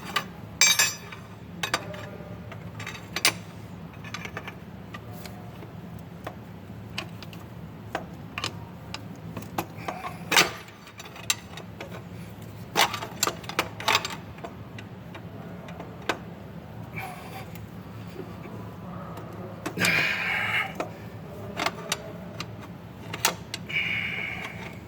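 Metal tools clicking, tapping and scraping against a stuck, corroded EGR valve on a 6.4 Powerstroke diesel as it is pried at, with scattered sharp taps and a couple of short scraping spells near the end, over a steady low hum.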